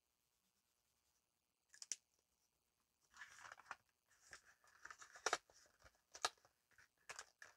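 Faint scissors snipping and plastic packaging crinkling as a pack of pens is cut open: a couple of sharp clicks about two seconds in, then rustling with several snips through the second half.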